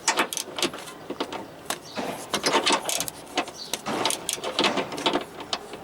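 Metal hand tools clicking and clinking in irregular clusters during work on the front suspension.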